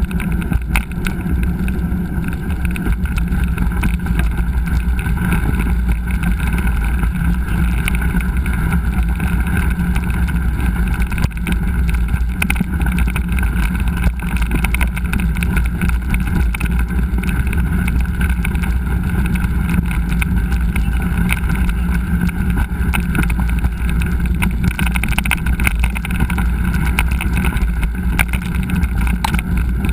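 Steady rumble of wind on a helmet- or bike-mounted GoPro's microphone during a mountain-bike ride, with a dense clatter of small knocks from the bike rolling over rough trail.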